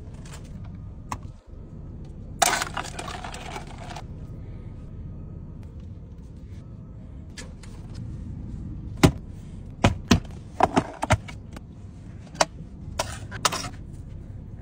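A crisp crunching bite into a flaky pastry lasting about a second and a half, then a run of sharp clicks and cracks from a fork and knife on a black plastic takeaway tray as the food is cut, over a low steady hum.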